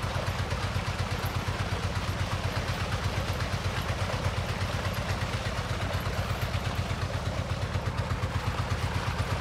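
Tube well pump engine running steadily with a fast, even thumping, and water gushing from its outlet pipe into the tank.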